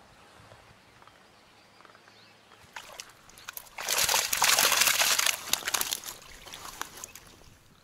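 Mesh keepnet holding fish lifted out of the lake: about four seconds in, water splashes and pours out through the mesh for a second or so, then trickles and drips back into the water.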